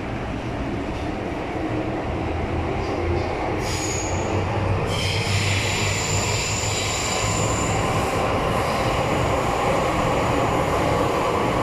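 MTR M-Train running through a tunnel, heard from inside the car: a steady rumble of wheels on rail, slowly getting louder, with a high metallic squeal from the wheels coming in about four seconds in and lasting several seconds.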